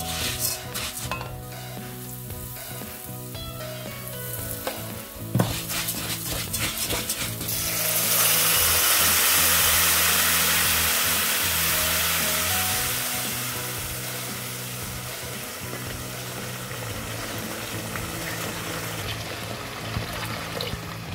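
A wooden spoon scrapes and stirs dry toasted grains in a hot nonstick pan. About eight seconds in, water hits the hot pan with a loud sizzling hiss that slowly dies down into a softer simmer over the following seconds. Background music plays throughout.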